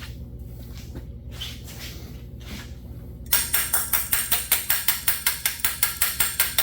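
Thunderbird 302 V8 idling steadily while its Motorcraft 2150 carburetor is tapped with a tool. The tapping starts about three seconds in as a quick run of sharp taps, about four a second. It is meant to free the sticking float that is letting the carburetor flood.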